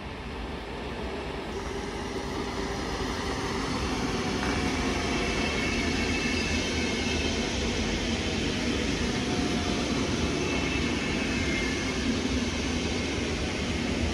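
Electric commuter train running along the track close by, its rumble and rail noise swelling over the first few seconds and then holding steady. Faint high whining tones sound over it.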